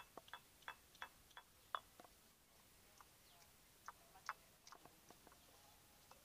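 Near silence broken by faint, irregular light clicks and taps, about twenty in six seconds, as ginger and garlic are handled and cut for ginger-garlic paste.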